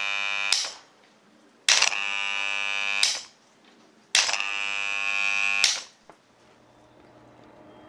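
The 24-volt AC coil of an IBM/ITR master clock relay buzzing each time it is switched on by hand with a toggle switch. One buzz stops about half a second in, then two more of about a second and a half each follow, each starting and stopping with a click. It is a noisy hum, which the restorer hopes to cut by tightening up the coil.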